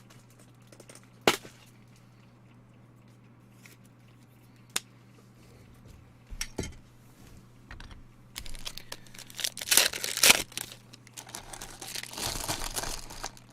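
Plastic wrapper of a trading-card pack being torn open and crinkled, loudest in the second half. A couple of sharp clicks come in the first few seconds as cards are handled.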